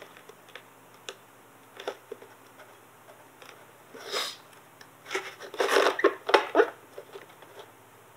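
Handling sounds of thumbs rubbing and pressing wet vinyl graphics onto a hard plastic RC truck body: scattered light clicks and rustles, with a short rub about four seconds in and louder rubbing bursts from about five to seven seconds.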